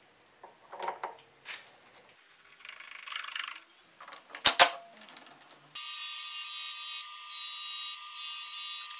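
Handling clicks and one sharp knock as an abrasive wheel is fitted and tightened on a lathe arbor. About two-thirds of the way in, the metal lathe starts spinning the non-woven abrasive wheel with a loud, steady noise and a thin high whine, polishing a metal hammer head.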